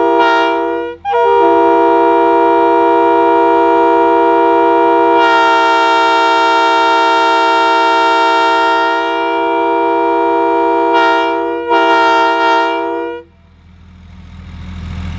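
Leslie RS3K hybrid three-chime train air horn (bells 31, 37, 44) blowing a steady chord: a short blast, a long blast of about ten seconds, then a short final blast that cuts off about thirteen seconds in.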